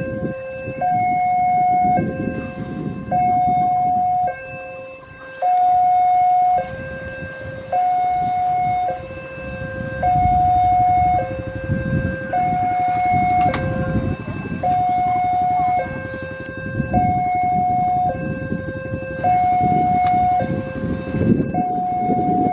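Railway level-crossing warning alarm sounding: an electronic two-tone signal alternating steadily between a higher and a lower note, each held about a second. A low rumble runs underneath.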